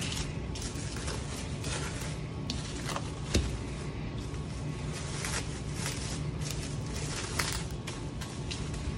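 Plastic cling film crinkling and rustling as hands fold it around a lump of dough and roll it into a cylinder, with one sharper tap about three and a half seconds in. A steady low hum runs underneath.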